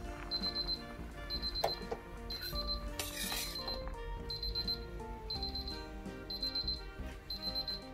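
Digital kitchen timer alarm beeping about once a second, each beep a short, high, rapidly pulsed burst, after the countdown has run out to zero, over background music.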